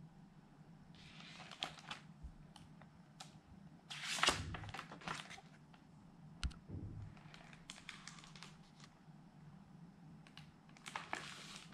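Paper rustling and soft knocks as a picture book's page is turned and the book is shifted on a countertop, the loudest rustle about four seconds in, over a low steady hum.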